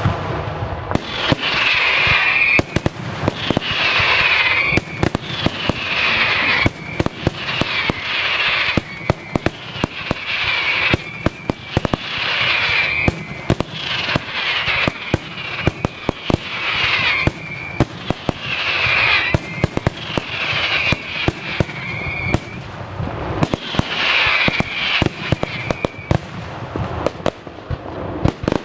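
Daytime fireworks barrage: a dense, continuous string of sharp bangs from aerial shells bursting overhead. A higher rushing sound rises and fades about every two seconds among the reports.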